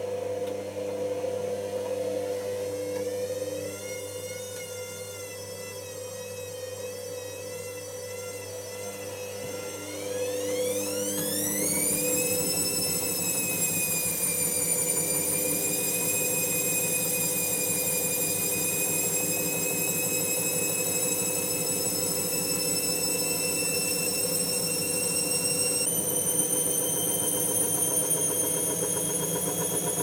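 Hotpoint front-loading washing machine's motor whining as the drum goes up into spin: a wavering whine, then from about a third of the way in a steep rising whine that grows louder and settles into a steady high whine, stepping up in pitch again near the end.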